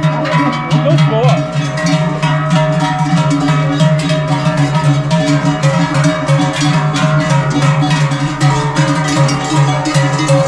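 Dense, continuous clanging of many cowbells worn by a herd of cattle being driven past.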